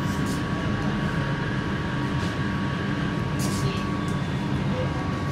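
Inside a Bombardier Innovia Metro 300 light-rail car running into a station: a steady low rumble from the car, with a constant high hum and a few faint clicks.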